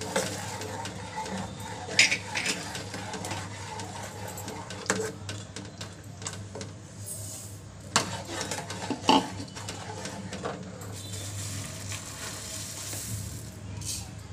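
Metal ladle stirring milk in an aluminium pot, scraping around the pot with several sharp clinks against its sides, over a steady low hum.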